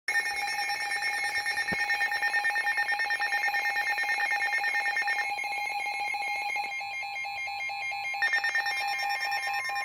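Weather radio sounding its alert for an emergency warning: a loud electronic alarm tone pulsing rapidly, its pattern of tones shifting about five seconds in.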